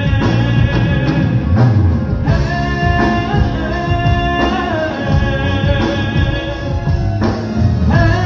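Live band music: a long held melody line over a steady bass.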